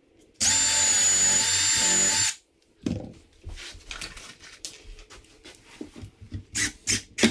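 Power drill driving a screw into the wooden chair frame, running steadily with a high whine for about two seconds before stopping abruptly. Scattered knocks and clicks of handling the clamped parts follow.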